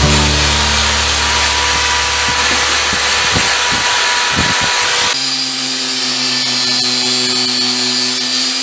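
A corded drill spinning a wire wheel against a forged steel spatula, scrubbing the metal. About five seconds in, the sound changes abruptly to an angle grinder running steadily against the steel, with a steady whine.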